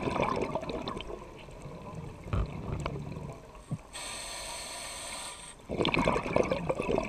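Scuba diver breathing through a regulator underwater: a burst of crackling exhaust bubbles that fades, a quieter stretch, a steady hiss of inhalation about four seconds in, then another burst of bubbles near the end.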